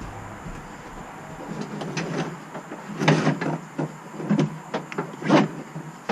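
New boat throttle and shift cables being pulled through by hand, scraping and rubbing in irregular bursts with a few short knocks, loudest about three and five seconds in.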